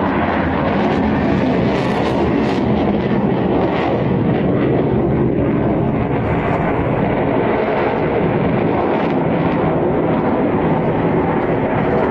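Steady jet engine noise from an F-15QA fighter's twin General Electric F110 turbofans as the jet manoeuvres in flight.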